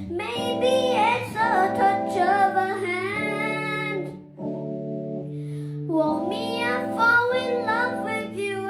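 Song with a child's or young woman's voice singing over steady accompaniment chords; the voice drops out for about two seconds mid-way while the chords continue, then resumes.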